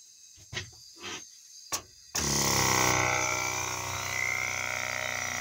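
A few knocks, then about two seconds in the air-driven Tesla mechanical oscillator starts up and runs with a steady low buzz, compressed air hissing through it.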